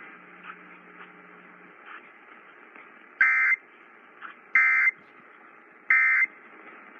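Emergency Alert System end-of-message data tones received on AM radio: three short, loud bursts of digital squawking, evenly spaced a little over a second apart, over steady radio static. They mark the close of the Required Monthly Test.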